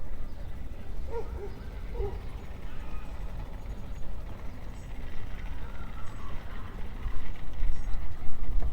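Dog-park ambience: a steady low rumble of wind and city noise, with two short high calls, likely dogs, about one and two seconds in.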